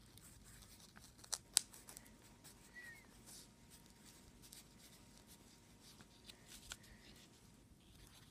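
Pencil writing on lined notebook paper: faint, short scratching strokes, with two sharp clicks about a second and a half in.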